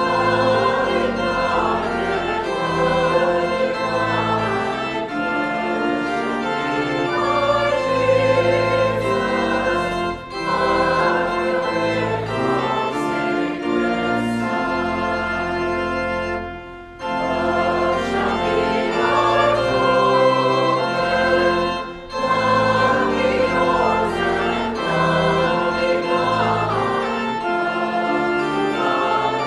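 Congregation singing a hymn with organ accompaniment, sustained chords with short breaks between phrases.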